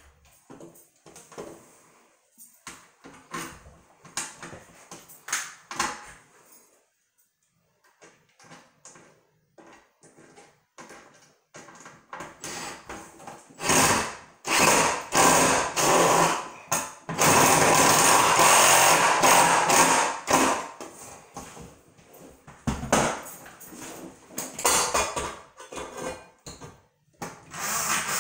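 DeWalt cordless drill driving screws through the metal frame of a recessed medicine cabinet into the wall, in several runs. The longest lasts about six seconds just past the middle, with short knocks and clicks of handling between runs.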